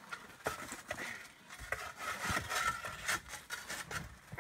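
Shovel scraping and knocking against stone and gravel, digging under a wooden bridge frame: a run of irregular scrapes and short knocks.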